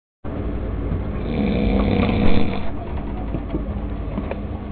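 Loud, heavy snoring: a long, louder snore peaking a little before the middle, then a quieter breath.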